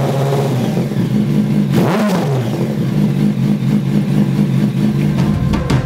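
2007 Yamaha YZF-R1's inline-four engine through Lextek MP4 twin aftermarket silencers, idling with one quick blip of the throttle about two seconds in, the revs rising and falling back before it settles into a steady idle.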